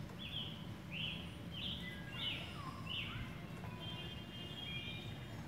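Wild songbirds singing in the background: five short swooping chirps, about one every two-thirds of a second over the first three seconds, then fainter drawn-out whistled notes, over steady low outdoor background noise.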